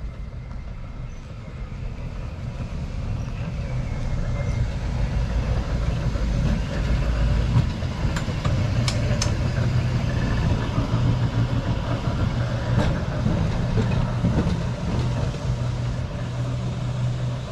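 Vintage double-deck electric tram passing close by on street track: a steady low hum from its motors and gearing with the rumble of steel wheels on the rails, growing louder over the first several seconds and staying loud as it moves away. A couple of sharp clicks come about nine seconds in.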